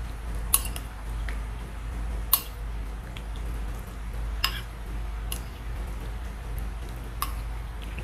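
A metal spoon clinking against a ceramic soup bowl while scooping and stirring, about five light clinks spread out, over a low steady hum.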